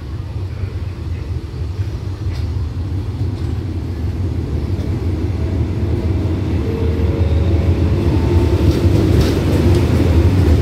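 Diesel locomotive hauling a passenger express train into a station. Its low engine rumble grows steadily louder as it approaches and draws alongside, with a humming engine note coming in over the second half.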